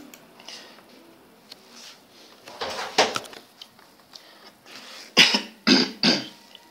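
A person coughing: a couple of coughs about two and a half seconds in, then three more in quick succession near the end.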